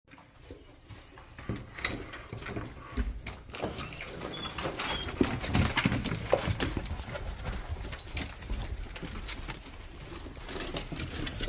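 Several dogs' claws clicking and paws tapping on wooden deck boards, irregular and scuffling as they move about and sniff each other.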